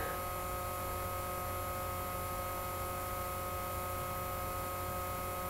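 Steady electrical hum and buzz in the recording, mains-type interference picked up by the microphone setup, holding a few fixed tones without change.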